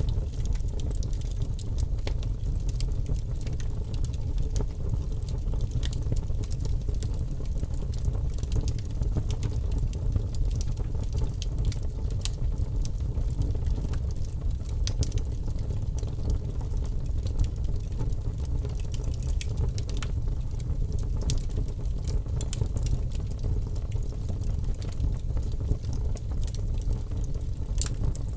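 Wood fire burning with large flames: a steady low rumble with many small, sharp crackles and pops scattered irregularly over it.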